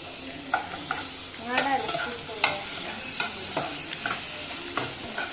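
A steel spoon stirring chicken pieces, onion, carrot and green chilli in a non-stick saucepan, with repeated scrapes and clicks against the pan over the steady sizzle of frying.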